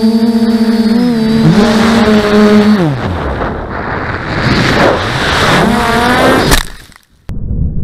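Quadcopter drone motors humming steadily, then winding down together about three seconds in as a power plug comes loose. Rushing air follows as the drone falls, then a rising whine and a sharp knock about six and a half seconds in. The sound cuts out briefly and is followed by a low rumble.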